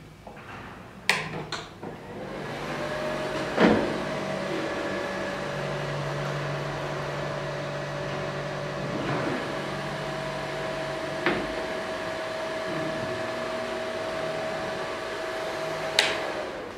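A moving-head zoom wash light is switched on with a click about a second in. Its cooling fan then runs with loud noise and a steady whine, with a couple of knocks as the head moves. It is switched off with a click near the end, and the fan stops.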